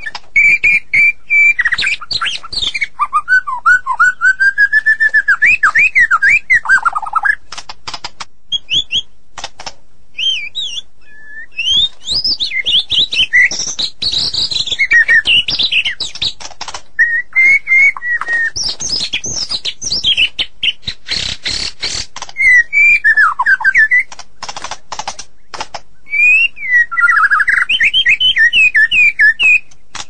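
White-rumped shama singing: a varied run of loud whistled phrases that glide up and down, mixed with quick runs of sharp clicking notes and short pauses between phrases.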